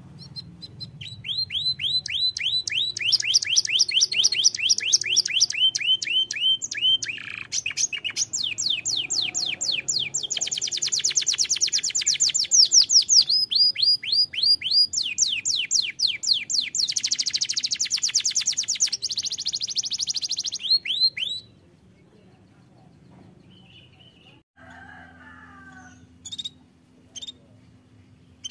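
Domestic canary singing a long song of rapid trills, each a fast run of repeated notes held for a second or two before switching to a new pitch. The song stops abruptly about three-quarters of the way through, leaving a few faint chirps.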